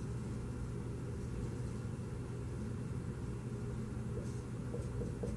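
Steady low hum of room background noise, with a few faint squeaks of a marker drawing on a whiteboard near the end.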